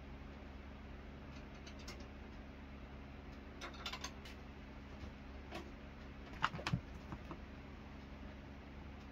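Scattered light clicks and taps from a kitten padding across a doormat and pawing at the plastic flap of a pet door, the sharpest cluster of taps coming a little past the middle, over a steady low hum.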